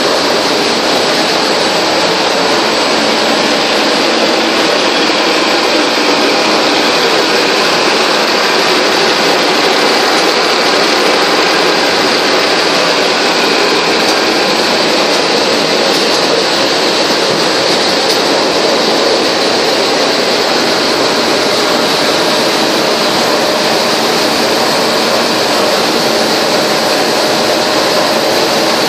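Steady machinery noise of a running biscuit production line, its conveyors and plant machinery making an even, unbroken hiss with a faint high whine.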